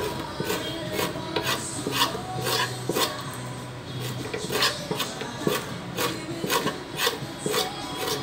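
Hog intestine being scraped along a wet wooden cutting board with a hand tool, in rasping strokes about twice a second. This is the scraping that strips the lining off to make sausage casing.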